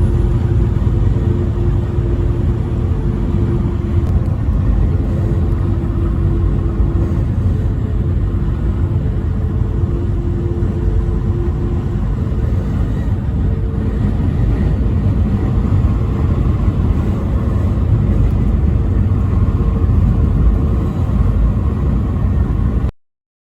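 Steady low rumble of a vehicle driving on the interstate, road and engine noise with a faint drone, ending abruptly.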